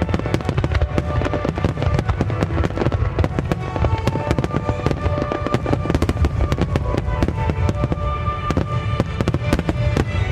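Aerial fireworks going off in a dense, rapid barrage of bangs and crackles, many a second, over music with held notes.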